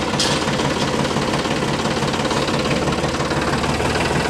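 Tractor engine running with a steady, rapid knocking chug.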